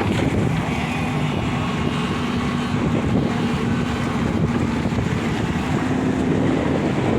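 JCB excavator's diesel engine running steadily, with a constant hum, and wind buffeting the microphone.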